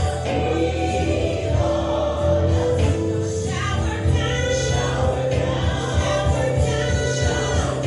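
Gospel song with a choir singing over sustained bass notes.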